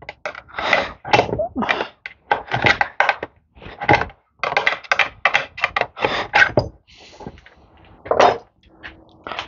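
Irregular metal clicks, taps and knocks as the small lid-lock clips are popped off a metal can of fuel-tank sealant.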